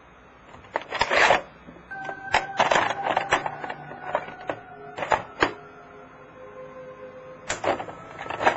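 Experimental electronic music: irregular clusters of sharp, clattering metallic clicks, with a few held tones ringing between them.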